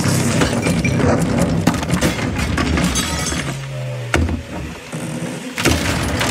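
Film soundtrack played over loudspeakers: a giant robot crashing through a living room, with things breaking, glass shattering and a clatter of debris over music. There are two heavier crashes, about four seconds in and near the end.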